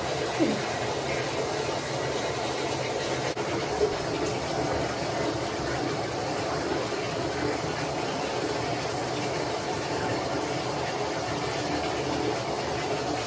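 Water running steadily into a bathtub as a small dog is washed, with a brief knock about half a second in and another near four seconds.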